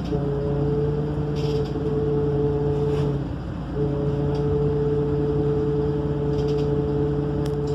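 MAN Lion's City city bus's diesel engine running, heard from inside the bus. It makes a steady drone with a humming tone that drops out briefly about three and a half seconds in and then comes back. This is the kind of engine sound the owner notices vanishing and returning on this bus.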